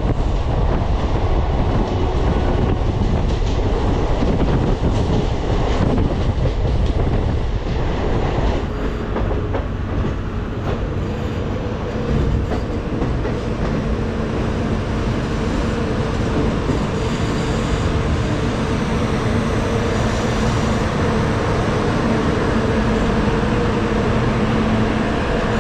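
Kamban Express passenger coach rolling into a station, its wheels clattering over rail joints and points under a steady rumble. From about halfway the clatter thins as the train slows, and a steady low hum comes in under the rumble.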